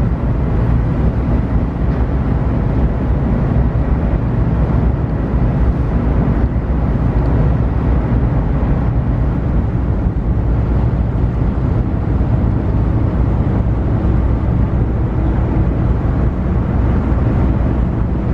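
Steady low rumble of a car ferry under way, heard on board: engine and hull noise with a faint hum, unchanging throughout.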